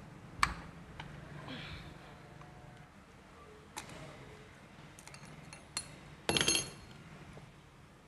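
Metal tools and engine parts clicking and clinking on an opened motorcycle cylinder head as it is dismantled: a few separate sharp clicks, then a short burst of ringing metallic clinks about six seconds in.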